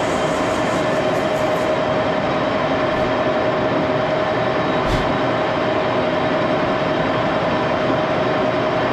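Old engine lathe running and taking a turning cut, chips peeling off the spinning part: a steady machine noise with a constant pitched tone through it. A single short click about five seconds in.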